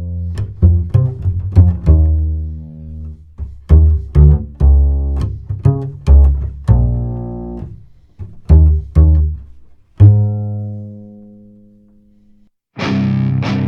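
Upright bass played pizzicato: a line of plucked low notes, each with a sharp attack and a decay, the last one ringing out about ten seconds in. It runs through a Buzz Audio Velox IC transformerless optical compressor set to slow attack, auto release, 2:1 ratio and a 50-50 blend with the dry signal. Distorted electric guitars come in near the end.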